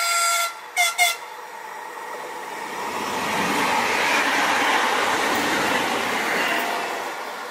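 Horn of a red-and-white double-deck electric passenger train: a blast that ends just after the start, then two short toots about a second in. Then the train passes close by, its rolling noise swelling to loudest midway and fading near the end.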